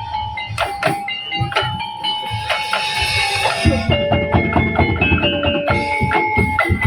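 Tongtek percussion ensemble playing: a melody over struck percussion, with heavier drumming coming in about halfway through.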